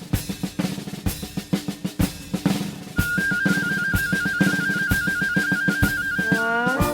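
Music intro of snare drum rolls and bass drum beats in a march-like rhythm. About halfway in, a high trilling tone joins and holds steady, and brass sliding up into chords comes in near the end.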